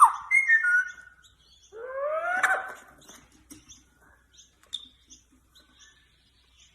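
Pet parrot vocalising: gliding calls at the start, a loud rising whistle about two seconds in, then soft scattered chirps and clicks.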